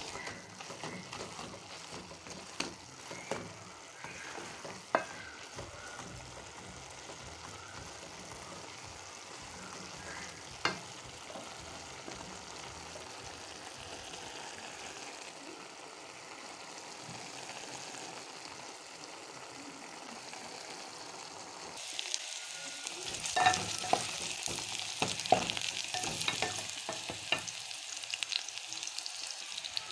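Chopped spinach being stirred in an aluminium pan with a wooden spoon: a soft steady cooking noise with an occasional knock of the spoon on the pan. About three quarters of the way through it changes abruptly to sliced onions sizzling in hot oil, louder and hissier, with a spatula scraping and tapping the pot.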